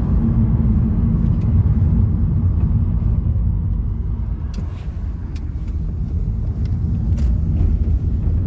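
Steady low road and engine rumble inside a moving car's cabin, heard during a taxi ride.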